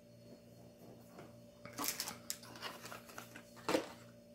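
Packaging being handled: a run of rustles and small clicks starting a little under two seconds in, with one sharper knock near the end, over a faint steady hum.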